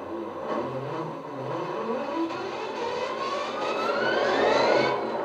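Class 66 diesel sound, an EMD two-stroke V12, played by an ESU LokSound decoder through a model locomotive's EM2 speaker. The engine idles, then from about two seconds in revs up with a rising whine that climbs to its loudest near the end and then drops away.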